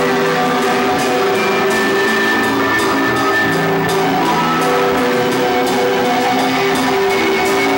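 A rock band playing live: sustained guitar chords that change every second or so, over drums with regular cymbal strikes.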